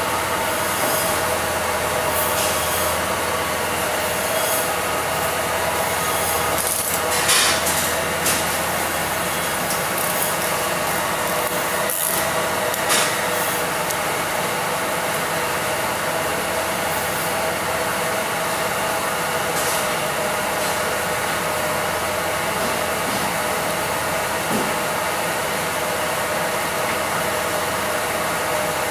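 Chamber vacuum skin-packing machine running its packing cycle: the vacuum pump drones steadily with a constant hum, and a few short clicks and hisses come partway through.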